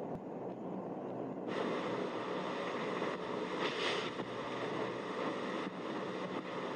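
Yamaha Force 155 scooter's 155 cc single-cylinder engine running at speed, heard from the rider's position under heavy wind noise on the microphone, near 100 km/h in the night run. The sound changes abruptly about a second and a half in, turning brighter, with a brief louder swell near the middle.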